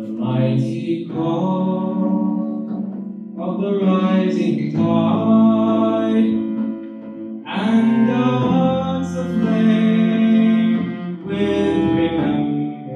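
A slow song with a bowed string instrument and voices, moving in phrases a few seconds long with short breaks between them.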